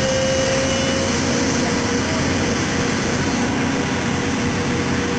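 Volvo EC210B LC hydraulic excavator's diesel engine running steadily close by, an even drone with a faint steady whine in it.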